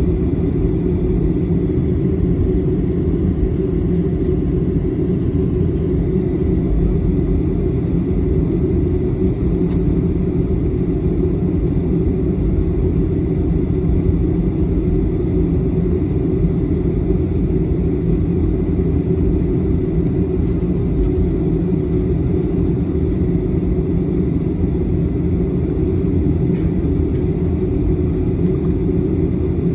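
Steady low rumble inside a jet airliner's cabin as it taxis, with a faint steady high whine over it.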